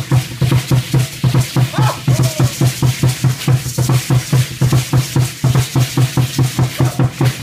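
Aztec danza drum beaten in a fast, steady rhythm of about four to five beats a second, with a continuous hissing rattle over the beats.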